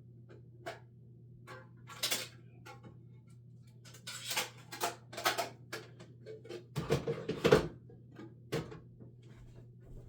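Rummaging through trading-card storage by hand: scattered clicks and taps of cards and plastic holders, a stretch of rustling, and a louder clatter of knocks about seven seconds in, over a steady low hum.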